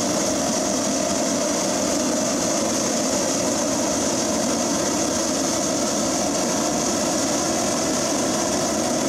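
Hot-air balloon's propane burner firing in one long, unbroken blast, a steady loud roar.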